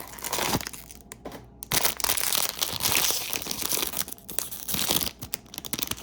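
A foil blind bag is torn open by hand and crinkled. There is a short burst near the start, then steady loud tearing and crinkling from about two seconds in.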